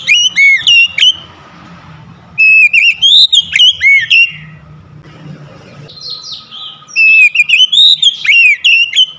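Oriental magpie-robin singing loud whistled phrases of rising and falling notes, in three bursts with short pauses between them.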